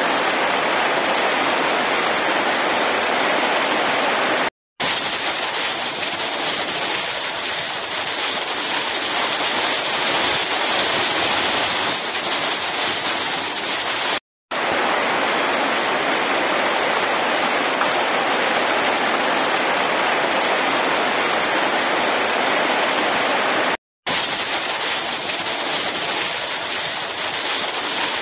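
Heavy rain falling steadily in a rainstorm, a dense even hiss, cut to silence for a split second three times.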